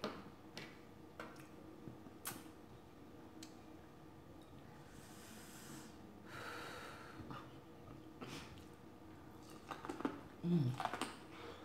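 Quiet eating-show mouth and breath sounds: a few soft clicks, a breathy hiss about halfway through, then a short hummed "mm" near the end as sauce-coated corn on the cob is bitten.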